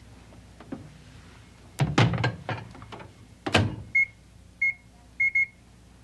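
Microwave oven being loaded and set: knocks as the covered dish goes in and the door shuts with a thud, then four short beeps from the touch keypad as the cook setting is entered.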